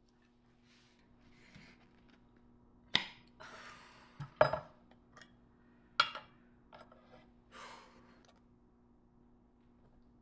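Small hard objects being handled: three sharp clinks about a second and a half apart, with soft rustling and scraping between them.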